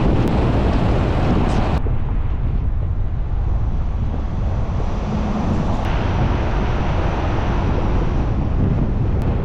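Heavy wind buffeting the microphone over the steady rumble of a boat running at speed, with water noise. The sound changes abruptly twice, about two seconds in and again near six seconds.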